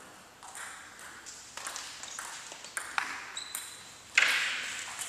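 Table tennis rally: the celluloid ball is struck by the paddles and bounces on the table in a run of sharp ticks about half a second apart, ending with a much louder, sharp hit about four seconds in that rings out in the hall.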